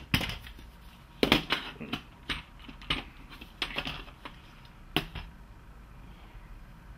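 Scattered clicks and knocks of a plastic-housed ABS control module, with metal valve-coil sleeves, being handled and shifted on a workbench. The sharpest knock comes about a second in and another about five seconds in.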